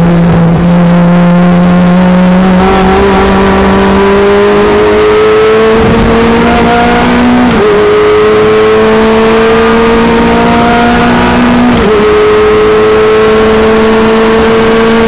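Renault Clio Mk3 Cup race car's four-cylinder engine, heard from inside the cabin, pulling hard at full throttle. Its pitch climbs steadily through the gears, with two quick upshifts, one just past halfway and one about four-fifths through.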